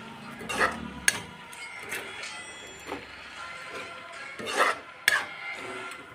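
Spoon scraping and stirring in a cooking pan: half a dozen short scrapes, the loudest about half a second in and again near four and a half seconds.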